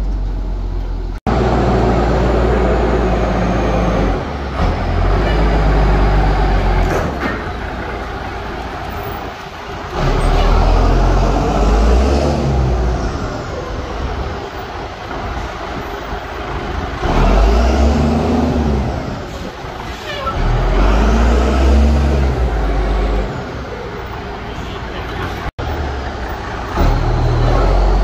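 Hay squeeze truck's engine revving up and easing off again and again as it works, with a high whine that rises and falls along with the revs.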